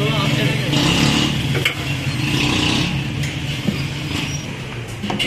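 Street traffic, with vehicle engines running and passing, and a few light clicks.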